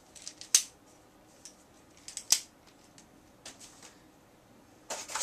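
Sharp, scattered clicks from an airsoft rifle bipod being handled, the two loudest about half a second and two and a half seconds in, with a short rustle near the end.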